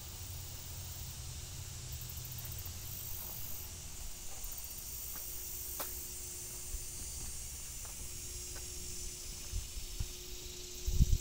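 Steady faint hiss of outdoor background noise, with a low rumble in the first few seconds and scattered small clicks; a couple of low thumps come right at the end.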